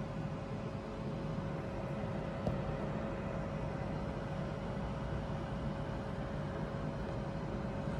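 Steady whoosh of a ventilation fan blowing air through a flexible aluminium duct into a network equipment rack, with a steady mid-pitched hum running through it and a faint click about two and a half seconds in.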